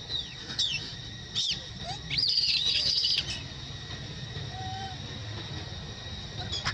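Young macaques squealing as they wrestle. A few short high-pitched squeals come in the first second and a half, then a louder run of squeals lasts about a second, and one more comes near the end.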